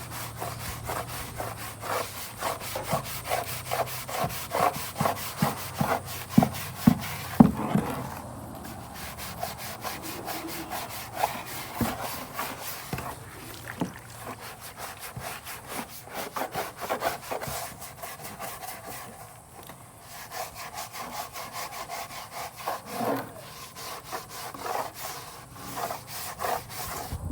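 Quick, rhythmic back-and-forth scraping strokes by hand that go on and on, with two short pauses, about a third and about two-thirds of the way through.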